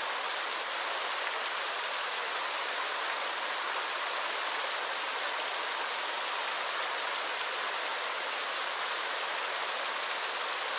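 Steady, even rush of water, unchanging throughout, with no separate drops, splashes or other events standing out.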